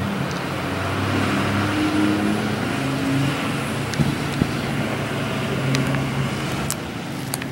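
Motor vehicle traffic: a car engine's low hum, its pitch stepping up and down several times over a steady road-noise haze.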